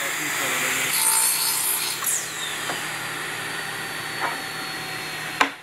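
Pneumatic wedge saw running, its circular blade cutting wedge shims from a 6-inch wooden board with dense sawing noise and a whine that drops in pitch about two seconds in. It stops abruptly with a click near the end.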